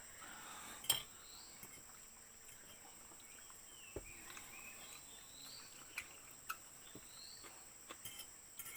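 A steady, high-pitched insect chorus, with a few faint chirps and a handful of short, light clicks and taps scattered through it.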